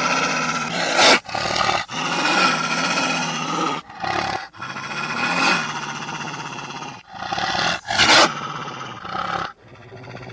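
Wolves growling and snarling in several long, rough stretches, broken by short pauses, with a few sharp, louder snaps or barks.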